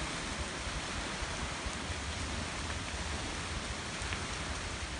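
Steady heavy rain falling on trees and the ground, a continuous even hiss with a few drops ticking and a low rumble underneath.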